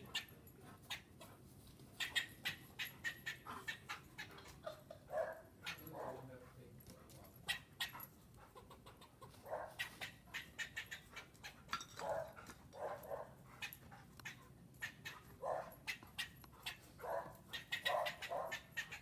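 Standard poodle whining and yelping in short, repeated bursts, excited at a squirrel out of reach, with many sharp clicks in between.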